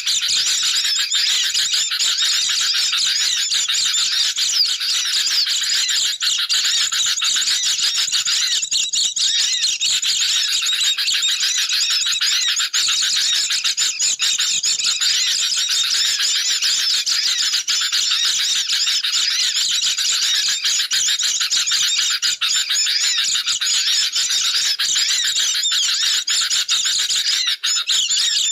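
Dense, unbroken chorus of sooty-headed bulbuls (kutilang) chattering noisily, mixed with the high, rapid twittering of white-eyes (pleci), many birds calling over one another. It is a bird-lure call recording used to draw in wild birds.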